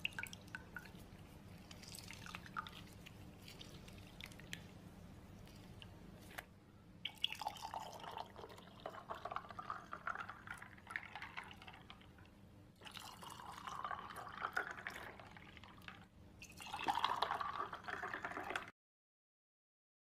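Lemon juice dripping into a jug of juice, then juice poured from a jug into glasses over ice in several short takes, each starting and stopping abruptly.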